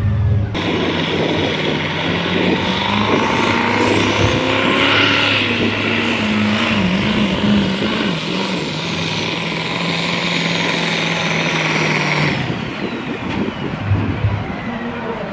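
Diesel pickup truck pulling a weight-transfer sled at full throttle, its engine running hard with a high turbo whistle that climbs and holds. About twelve seconds in the engine sound drops off sharply and the whistle slowly falls away.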